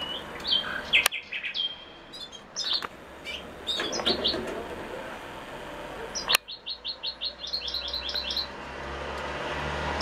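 European goldfinches calling: short high chirps here and there, then a quick run of repeated calls, about six a second, from around six to eight and a half seconds in. Two sharp clicks stand out, about a second in and just after six seconds.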